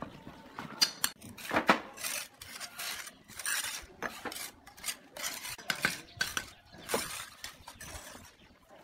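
Steel bricklaying trowel scraping wet mortar and tapping on clay bricks: irregular clinks and scrapes.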